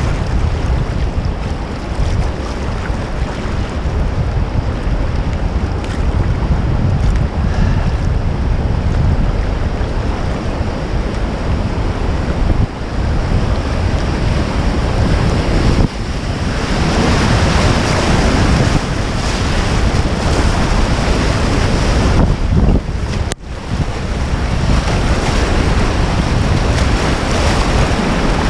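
Rushing river water with heavy wind buffeting on the microphone. The water noise grows louder and hissier a little past halfway, with a brief break in the sound near the end.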